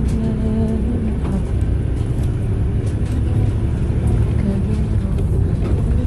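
Steady low rumble of a city bus's engine and tyres on the road, heard from inside the bus.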